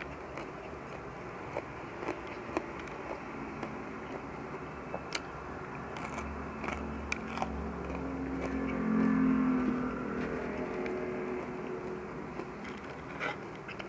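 Close-up chewing and crunching of crispy fried dried anchovies (dilis) eaten by hand, with scattered short crisp crunches. In the middle a low hum swells up, becomes the loudest sound, and fades again.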